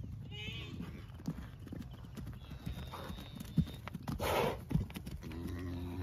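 Farm animals moving about: scattered hoof steps and knocks, with a short breathy burst about four seconds in.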